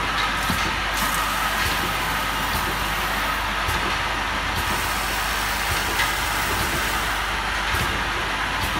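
Syrup filling line running: a steady mechanical hum of the conveyor and machinery, with a few short clicks and knocks scattered through it.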